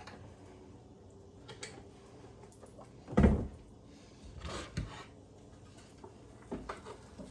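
A few dull knocks and bumps from things being handled in a kitchen, the loudest about three seconds in, with two or three lighter ones after it.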